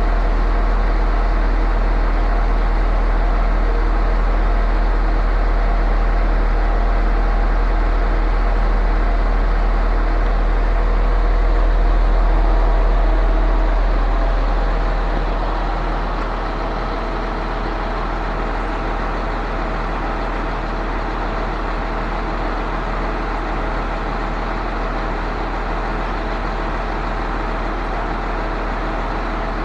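Concrete pump truck's diesel engine running steadily under load with a deep hum; about halfway through it eases down and stays quieter.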